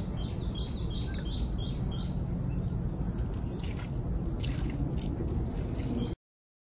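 Insects shrilling steadily on one high pitch over a low rumble, with a quick run of short bird chirps in the first second or so and a few faint clicks later. The sound cuts off suddenly about six seconds in.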